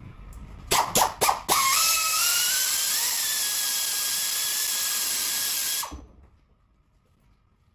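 Handheld die grinder porting the aluminium housing of a TVS twin-screw supercharger. It gives three short blips about a second in, then runs with a steady high whine for about four seconds as it grinds the metal, and stops suddenly.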